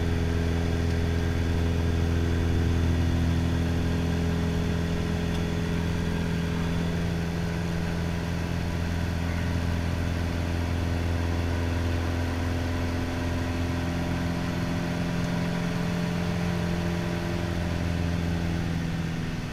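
Single-engine light aircraft's piston engine and propeller droning steadily, heard inside the cockpit during flight. The hum holds an even pitch and firms up again over the last few seconds.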